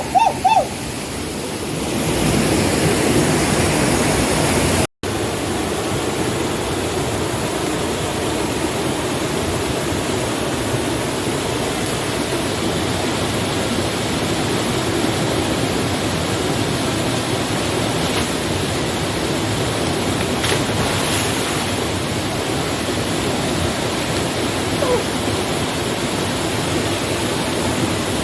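Waterfall rushing: a steady roar of falling water, with a brief break about five seconds in.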